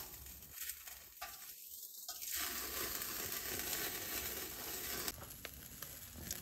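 Meat sizzling on the wire grate of a charcoal kettle grill, the hiss growing louder about two seconds in as fat flares up over the coals, with light clicks of metal tongs turning the meat.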